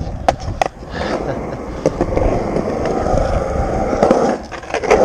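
Skateboard wheels rolling on skatepark concrete through a nose manual, a steady rumble. There are two sharp clacks just after the start and a louder clack of the board near the end.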